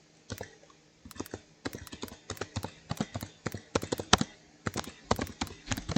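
Typing on a computer keyboard: a run of irregular key clicks, several a second, with a short pause about half a second in.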